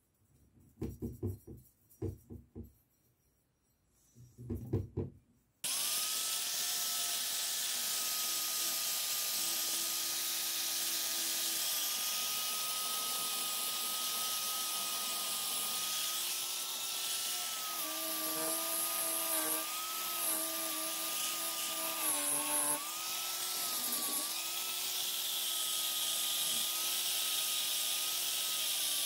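A few short rubbing and handling sounds on the axe head, then, about six seconds in, an electric angle grinder with a foam polishing pad starts running with a steady whine. Its pitch dips several times in the second half as the pad is pressed onto the steel axe head to buff it.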